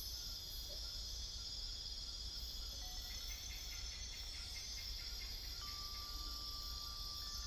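Night rainforest insect chorus: dense, steady high-pitched buzzing and trilling, joined about three seconds in by a series of quick repeated chirps. Over halfway through a single clear steady tone comes in and holds.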